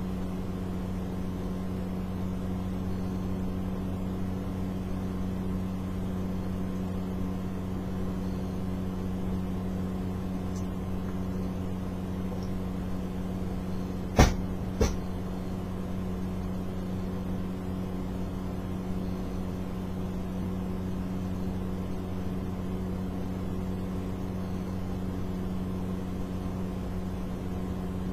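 Steady machine hum, one low tone with its overtones, unchanging throughout. Two sharp knocks about half a second apart come roughly halfway through.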